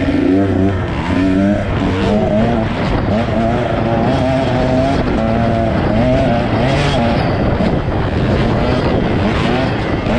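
Husqvarna two-stroke dirt bike engine revving hard, its pitch rising and falling repeatedly as the throttle is worked on and off.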